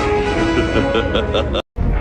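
Orchestral music with bowed strings over a loud low rumble, broken by a sudden split-second dropout to silence near the end.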